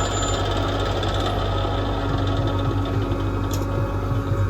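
Heavy diesel engine running steadily with an even, unbroken drone.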